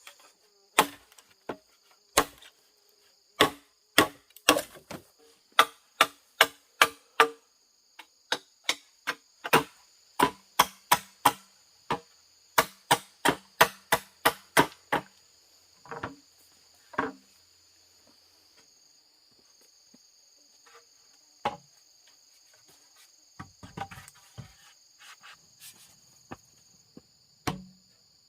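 Wood being chopped by hand: sharp blows, often in quick runs of about two a second with pauses between, over a steady high-pitched insect drone.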